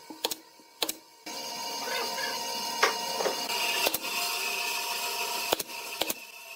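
Pneumatic nail gun driving nails into pine boards: several sharp shots at uneven intervals. A steady background noise comes in suddenly about a second in.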